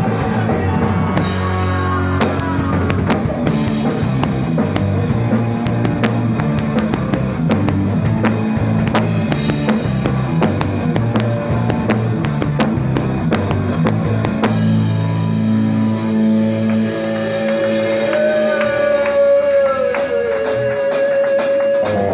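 Rock band playing live: drum kit and guitar. Near the end a long held note bends downward over a wash of cymbal hits.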